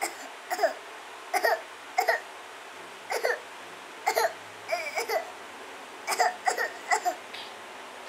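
A young child giving a string of short, put-on coughs, about one to two a second: she is faking a cold to get a cough drop.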